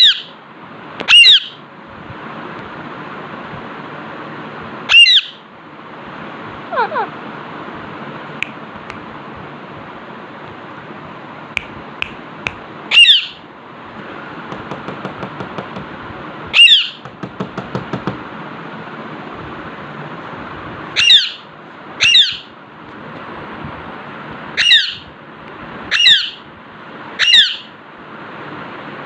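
Alexandrine parakeet giving loud, short squawks, about a dozen at irregular intervals, over a steady background hiss. Between them come a few quieter runs of rapid clicks.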